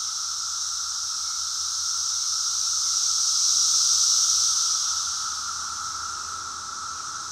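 Chorus of Brood X periodical cicadas (Magicicada) singing in the treetops: a loud, steady buzzing drone with a lower tone and a higher hiss, made by the males' tymbals. It swells to a peak about four seconds in and then eases off as the males sing in sync, calling for females.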